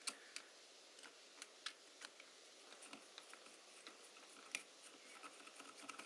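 Near silence with faint, scattered clicks and taps of small screws, a hand driver and carbon-fibre frame parts being handled while a strut is fitted to a multirotor frame; the sharpest click comes about four and a half seconds in.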